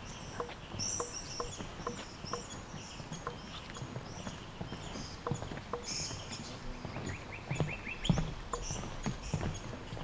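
Footsteps on the suspended tree-top walkway, about two a second, each step a light knock with a short ring from the deck. Birds chirp high above them, with a short rapid trill about seven seconds in.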